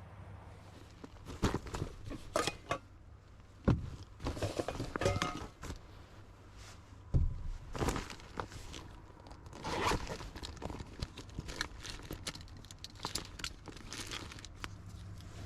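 Crinkling and tearing of something being handled, with scattered clicks and knocks, over a steady low hum.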